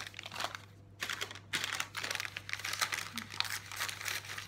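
Plastic wrapper of a Woolworths Bricks collectable pack crinkling as hands tear it open and pull it apart, with a short lull a little under a second in.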